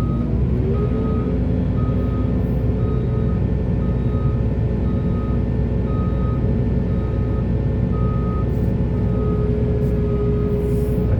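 Heavy diesel construction machinery running steadily, with a backup alarm beeping evenly over it, about once or twice a second.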